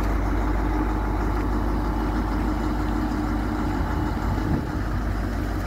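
Diesel railcar (a V/Line Sprinter, known locally as the Doodlebug) idling at a standstill: a steady low engine rumble with a faint steady hum that fades about four seconds in.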